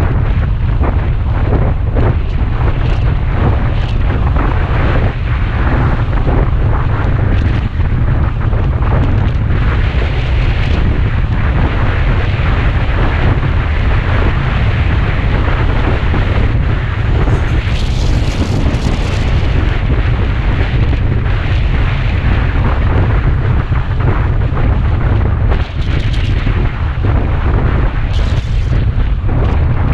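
Wind buffeting the microphone of a camera mounted on a moving motorcycle: a loud, steady low rumble with road noise mixed in.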